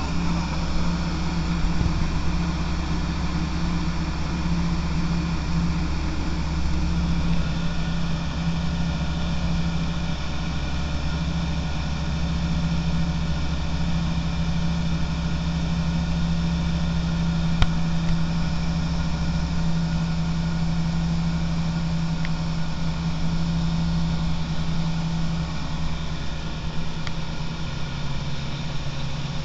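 Light aircraft's piston engine and propeller running steadily at a constant pitch, with a slight change in tone about 25 seconds in.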